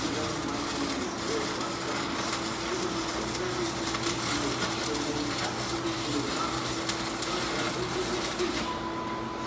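Arc welding on the steel floor of a dump truck bed: a steady crackle from the arc that stops near the end.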